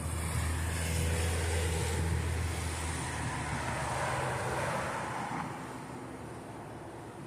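A motor vehicle passing on the road: its engine hum and tyre noise grow and then die away about five seconds in.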